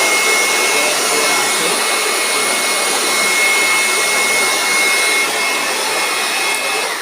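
400-watt electric handheld blower running at full speed, its fixed-speed motor giving a loud rush of air with a steady high whine. Near the end the switch is let go and the whine starts to fall as it winds down.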